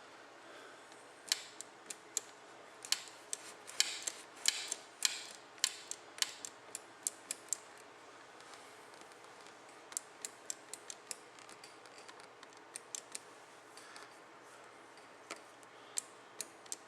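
Irregular small sharp clicks and ticks, coming in clusters, from hand work on a Harley's throttle cable adjusters at the handlebar as the cables are run out to take up slack.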